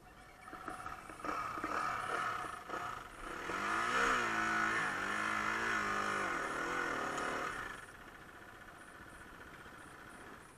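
Dirt bike engine revving in repeated throttle blips, its pitch rising and falling as the bike is worked up a rocky step, with stones knocking and clattering at first. The engine drops away about three-quarters of the way through.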